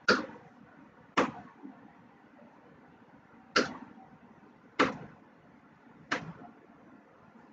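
Kitchen knife chopping carrots: five sharp, separate knocks of the blade coming down, spaced irregularly a second or more apart.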